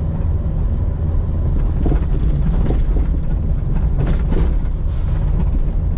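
Car cabin noise while driving slowly on a rough dirt road: a steady low rumble of engine and tyres, with a few short knocks and rattles as the car goes over bumps.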